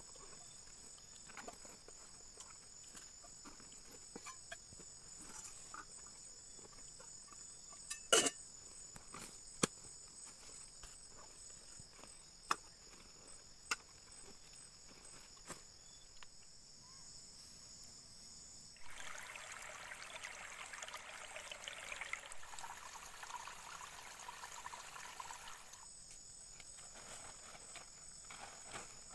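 Chorus of forest insects trilling steadily, high-pitched and pulsing, with a few sharp clicks or snaps partway through. About two-thirds of the way in, a rushing hiss lasting several seconds covers the insects. The insects are heard again once it stops.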